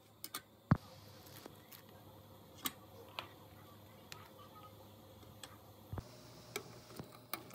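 Scattered sharp clicks and light knocks of a plastic ladle against a metal pot of simmering vegetable soup, the loudest about a second in, over a faint steady background.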